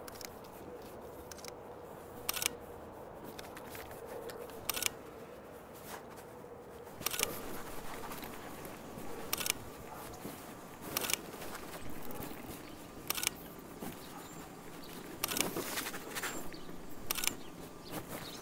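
Camera shutter clicks, one about every two seconds, over a faint steady background.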